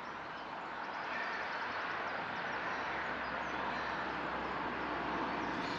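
Steady outdoor rushing noise, with a low rumble that grows slightly in the middle.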